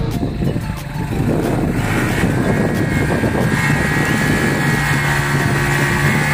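KTM Duke's single-cylinder engine revving hard and held at high revs as the rear wheel spins in loose sand, the bike stuck and digging in. The revs pick up about a second in and climb slightly.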